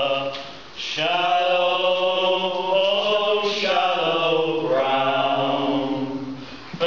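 A group of male voices singing a sea shanty together in harmony, on long held notes, with a short breath break about a second in and another just before the end.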